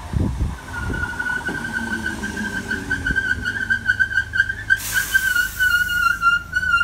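Southern Class 313 electric multiple unit running into the platform, with a steady, slightly wavering high-pitched squeal that sets in about a second in, typical of its brakes as it slows to a stop. A short hiss breaks in about five seconds in, and there are low rumbling thumps at the very start.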